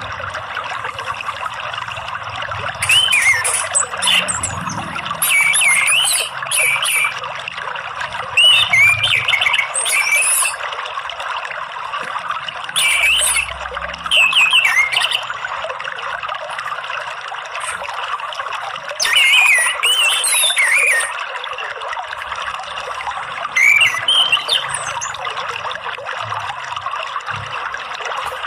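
Orange-headed thrush (anis merah) singing short phrases of quick, varied whistled notes every few seconds over a steady trickle of running water.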